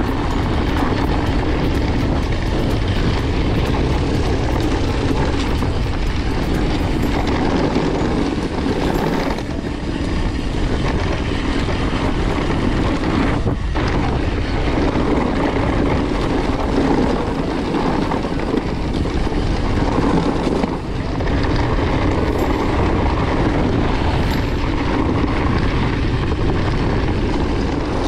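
Wind rushing over the camera's microphone as a mountain bike runs fast downhill: a steady, loud rushing noise that dips briefly a couple of times.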